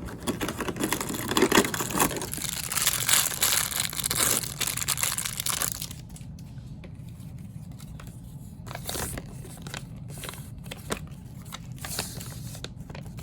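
A small toy blind bag being torn open and crinkled for about six seconds, then a few quieter rustles and clicks as the contents are handled.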